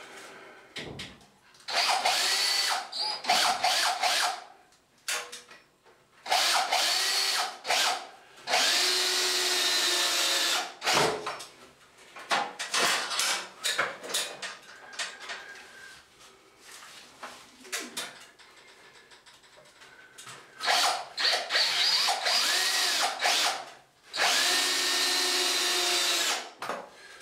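Cordless drill driver driving 4-inch wood screws at an angle through a 3x2 timber stud into the timber beside it, in about six bursts of a couple of seconds each with pauses between, the motor pitch shifting as each screw bites and goes home.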